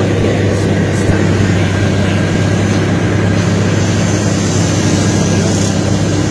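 Small plane's piston engine and propeller droning steadily in flight, heard from inside the cabin; a loud, even, low drone that holds its pitch throughout.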